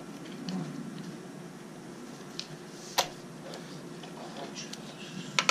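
Hand tools clicking against electrical wire as corroded wire ends are cleaned: scattered faint ticks, one sharp click about three seconds in, and a louder clack near the end.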